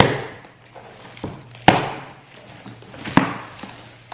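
A taped cardboard box being opened by hand: packing tape slit with house keys and the cardboard flaps torn and pulled back, giving three sharp cracks, each trailing off in a rustle.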